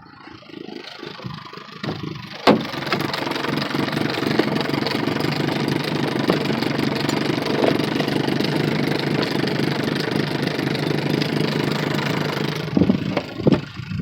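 Boat motor started with a sharp click about two and a half seconds in, then running steadily for about ten seconds before being shut off, with a few knocks after it stops.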